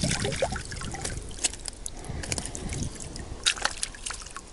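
Shallow water sloshing and dripping as a wire-mesh fish keepnet with a fish in it is handled and lowered back into the water, with small clicks and drips throughout and a louder splash at the very start.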